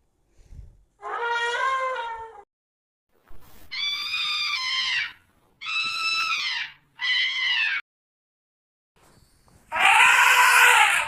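Asian elephant trumpeting: five separate high-pitched trumpet calls with short silences between them. The last call, near the end, is the loudest and rougher than the others.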